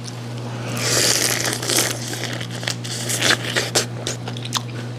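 Close-miked eating of blue crab stew: a rush of slurping noise about a second in, then a string of small sharp cracks and crackles as crab shell is bitten and chewed.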